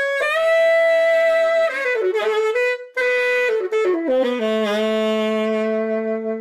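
Saxophone intro jingle: a long held note, then a run of short notes stepping downward with a brief break about three seconds in, ending on a long note held for about two seconds that dies away at the end.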